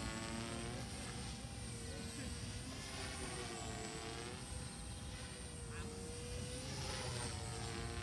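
Electric Oxy 3 RC helicopter in flight, its motor and rotor whine sliding up and down in pitch as the throttle and head speed change through manoeuvres, over a steady thin high whine and a low rumble.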